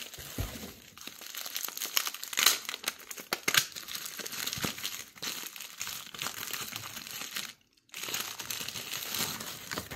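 Packaging crinkling and crackling in irregular rustles as a small item is unwrapped by hand, with a brief break about three quarters of the way through.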